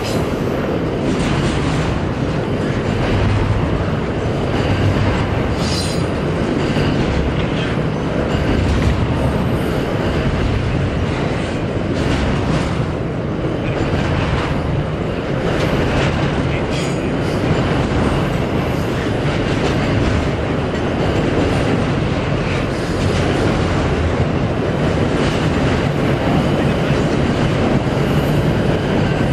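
Double-stack intermodal freight train rolling steadily across a steel trestle bridge: a continuous rumble of steel wheels on rail, with clicks as wheels pass over rail joints.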